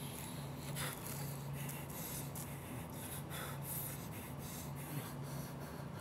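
A man's heavy breathing, short noisy breaths at irregular intervals, over a low steady hum.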